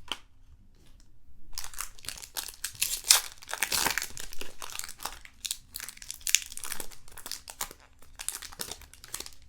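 Foil trading-card pack wrapper crinkling and tearing as it is handled and ripped open, in irregular rustling strokes that are loudest a few seconds in.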